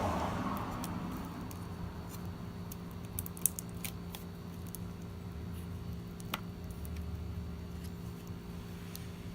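A few light clicks and taps from handling iMac parts during disassembly, over a steady low background hum.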